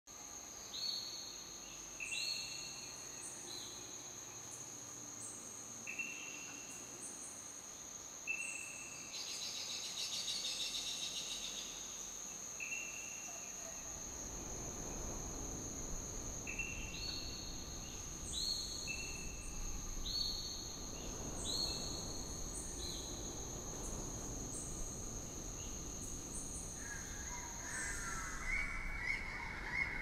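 Tropical forest ambience: a steady, high insect drone under repeated short whistled calls about once a second, with a brief buzzy trill early on. A low rumble joins about halfway. Near the end the insect drone stops and a lower call with falling notes begins.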